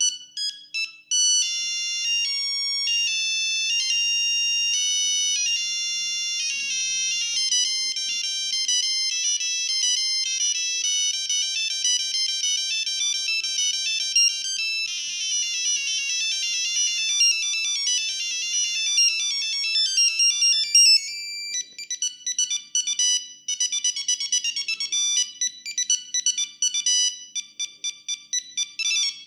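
Siemens S35 mobile phone playing its built-in ringtones one after another: high electronic beeping melodies, switching to a new tune a few times. Near the end the tune turns into a fast pattern of short repeated notes.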